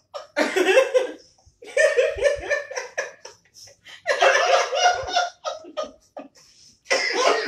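Women laughing hard in four long bursts with short pauses between them.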